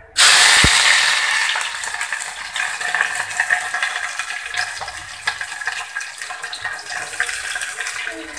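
Chopped onion and curry leaves dropped into hot oil with mustard seeds, bursting into a loud sizzle at once, then settling into a steady sizzle with small crackles and spits as they fry.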